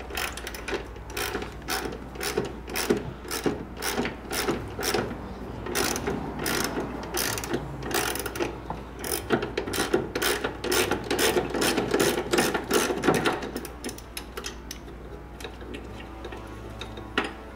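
Socket ratchet clicking as it works loose the 17 mm bolts holding the upper control arm, in a steady run of about three clicks a second that thins out and stops about 14 seconds in, with one more click near the end.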